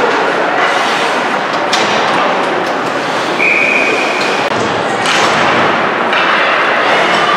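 Ice hockey game heard from the stands: steady crowd and arena noise in a large reverberant rink, with sharp clacks and thuds of sticks, puck and boards. A short high tone sounds about halfway through.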